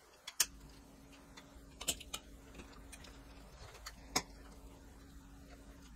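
A few faint, sharp metal clicks, about four spread over the few seconds, as pliers grip and work the rusty locking ring holding a clutch slave cylinder into the gearbox. A faint steady hum runs underneath.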